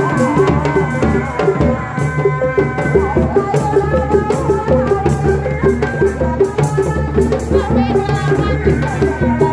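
Live Sundanese reak ensemble: dog-dog frame drums beaten with sticks in a fast, steady, interlocking rhythm, with a wavering melody line over them.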